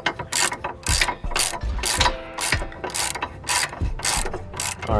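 3/8-inch socket ratchet clicking in short back-and-forth strokes, about two a second, on the bottom nut of a rear sway bar end link. The ball stud turns with the nut instead of the nut backing off.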